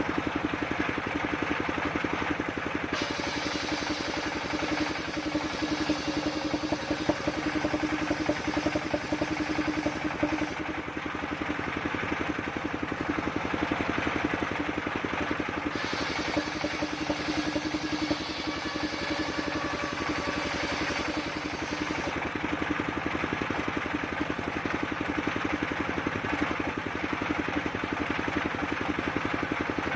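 Engine of a portable circular sawmill running steadily, with two long stretches of added higher-pitched noise.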